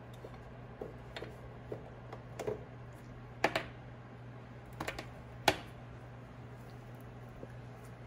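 Pot of fish broth simmering uncovered on a stovetop: scattered light pops and clicks, two sharper ones about three and a half and five and a half seconds in, over a low steady hum.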